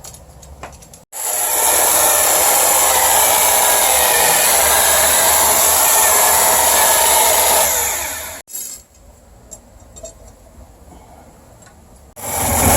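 An electric power tool runs steadily for about seven seconds and stops; about a second before the end it starts again.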